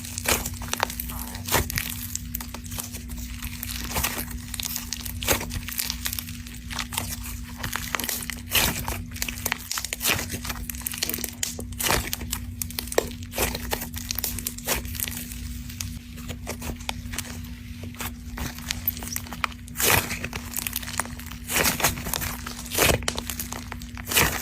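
Snow slime crackling and crunching as it is squeezed and pulled, a dense run of small crackles with louder, sharper crunches now and then.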